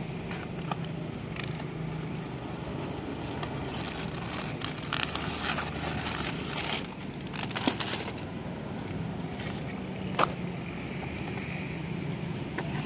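A drone's retail box being unboxed by hand: cardboard and plastic packaging scraping and rustling, with scattered clicks, densest midway and with one sharp click near the end, over a steady low background hum.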